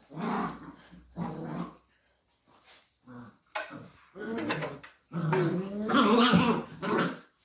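Two beagle puppies growling at each other as they wrestle, in several short bursts with brief pauses, the loudest and longest near the end.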